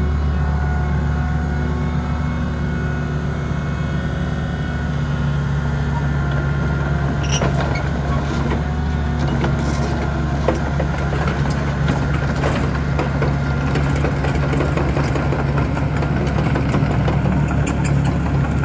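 Hitachi ZX60 midi excavator's diesel engine running steadily while the machine slews its upper structure. Scattered light clicks and clanks come in from about seven seconds in.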